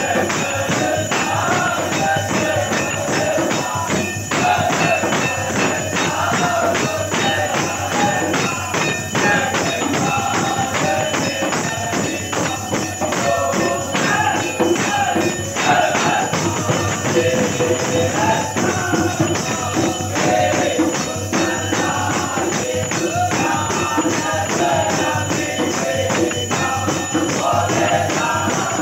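Devotional music during a temple aarti: a wavering melody over fast, continuous metallic jingling and ringing of bells.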